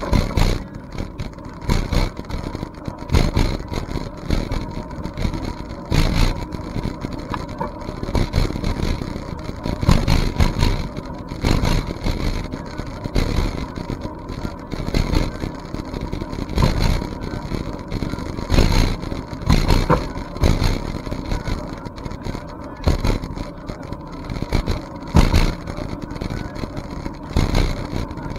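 Wind buffeting a camera microphone on a moving bicycle, with the ride's rumble underneath. It comes in frequent, irregular gusts.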